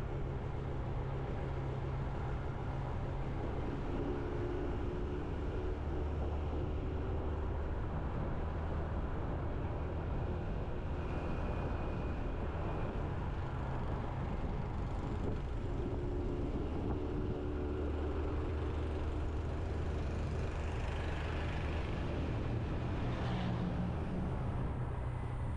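Motorbike engine running steadily while riding, with wind and road noise.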